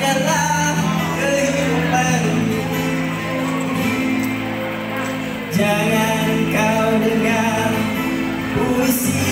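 A man singing a song into a handheld microphone over instrumental accompaniment with a steady bass line.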